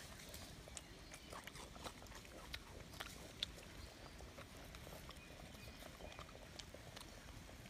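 Two newborn macaques suckling at their mother's nipples: faint, irregular little sucking clicks and smacks, the sharpest a little over three seconds in, over a low background hum.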